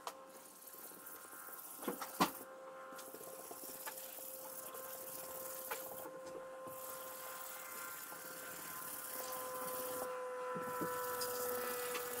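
Flat brush scrubbing screen cleaner over the mesh of a silkscreen to erase the printed image: a continuous scratchy hiss that breaks off briefly three times, over a steady faint hum. A couple of sharp clicks about two seconds in.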